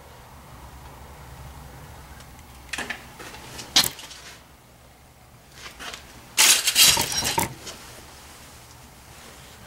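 Handling noise: a couple of sharp metallic clinks, then a louder scraping, rustling burst about two-thirds of the way in, from galvanized steel stove vent pipe being handled and jacket fabric brushing close to the microphone.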